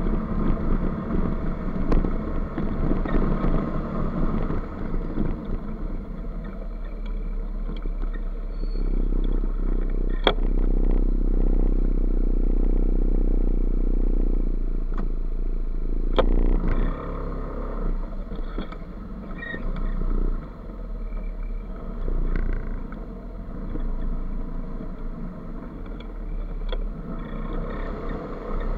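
Motor scooter engine running at low speed inside a concrete multi-storey car park, holding a steadier, louder note for a few seconds near the middle. Two sharp clicks, about ten and sixteen seconds in.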